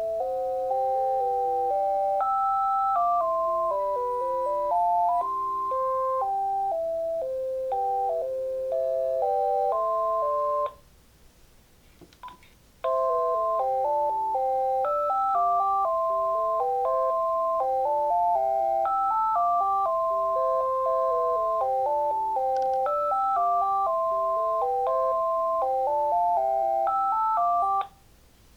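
A Uniden TCX 905 cordless phone handset plays a melodic electronic ringtone in stepped notes, with several notes sounding together. It stops about ten seconds in. After a short pause with a faint click, a melody plays again until near the end.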